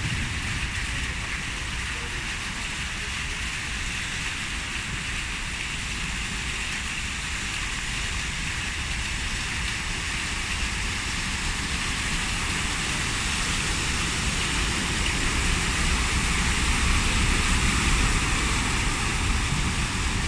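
Cars and a delivery truck drive through a deeply flooded street, their tyres ploughing and spraying water, over steady rain falling on the standing water. The splashing grows louder over the last few seconds as the truck passes close.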